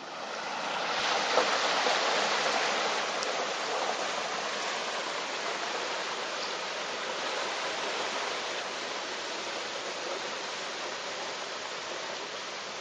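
A Mazda estate car's wheels pushing through deep floodwater on a road, with a steady rushing and splashing of water. It swells over the first two seconds, then slowly eases off.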